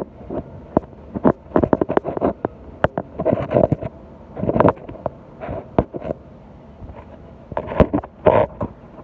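Irregular clicks, knocks and short rubbing or scraping sounds close to the microphone, as the lights and the phone are handled.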